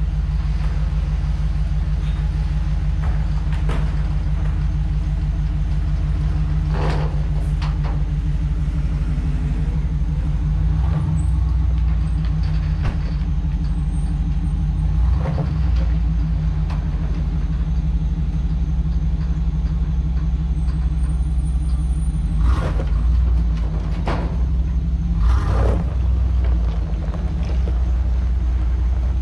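Pickup truck engine running steadily at low revs as the lifted truck is driven down off a flatbed trailer, with several short knocks and clunks along the way.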